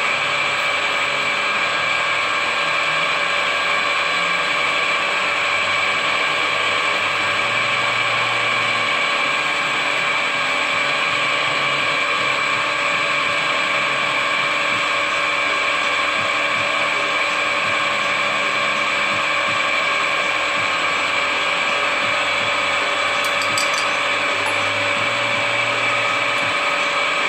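Geared-head bench drill press running steadily, its motor and gearbox giving a constant whine of several steady tones, while it drills bolts for safety-wire tethering.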